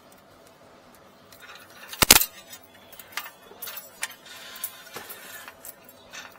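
Hardware being handled during cable work: one loud sharp knock about two seconds in, then scattered metallic clicks, clinks and rustling.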